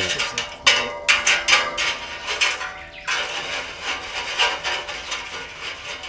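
Wire grill mesh knocked repeatedly against the rim of a steel fire-pit bowl to shake off ash. A quick run of metallic clanks with a ringing tone comes first, giving way after about three seconds to softer rattling and scraping.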